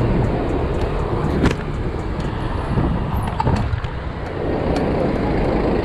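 Street traffic noise beside a truck, with a steady low rumble of wind on the microphone from riding a bicycle. A couple of sharp clicks stand out, about a second and a half and three and a half seconds in.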